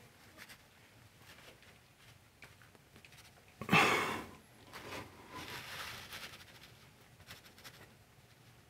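Quiet handling sounds of thin clay brick slips being set by hand into combed adhesive on a wall: faint scattered ticks and scrapes, with one short, louder noisy rustle about four seconds in and a softer one shortly after.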